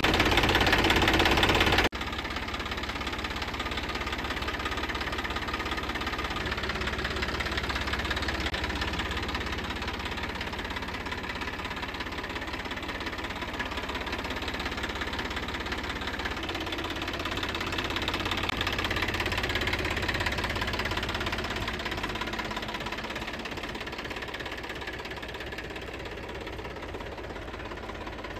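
Tractor diesel engine idling steadily. The sound drops in level sharply about two seconds in, then carries on evenly.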